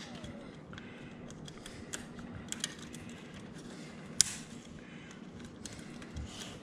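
Light plastic clicks and rattling of vertical blind carrier clips and slats being twisted and handled at the headrail, with one sharper click about four seconds in.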